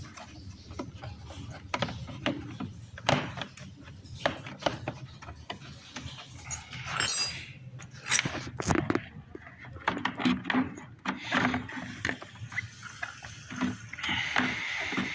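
Irregular clicks, knocks and scrapes of hands working the rubber insert and plastic parts of a motorcycle air filter housing.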